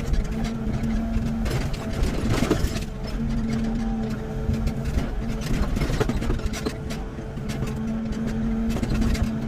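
Excavator's diesel engine running with a steady low rumble. A pitched hum rises over it three times and drops away, as the machine works under varying load, with scattered knocks.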